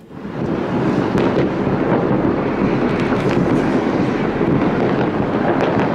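A dense barrage of many fireworks and firecrackers going off at once: a continuous rumbling din with sharper bangs cracking through it. It starts abruptly and stays loud.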